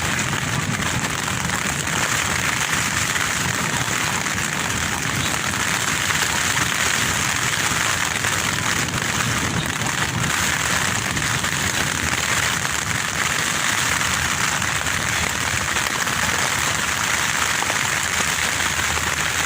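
Strong wind buffeting a tent, its fabric and rain fly shaking and rustling in a steady rushing noise.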